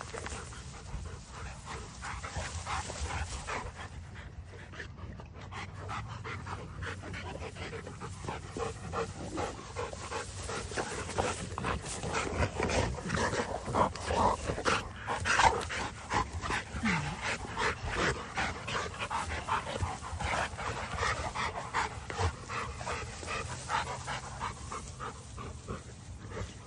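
Large dogs panting and crashing through tall grass as they run and wrestle close by, a dense, uneven rustling that is busiest midway.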